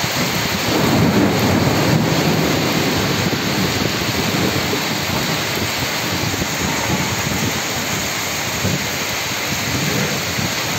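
Heavy rain mixed with hail pouring down onto gravel, a steady dense hiss. A low rumble of thunder swells about a second in and fades into the downpour.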